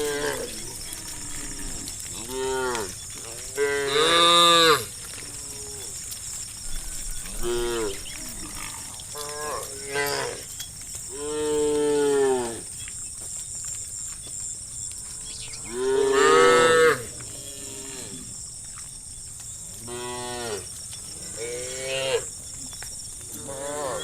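A herd of cows mooing, about ten separate calls of differing length, the loudest about four and sixteen seconds in, over a steady high hiss.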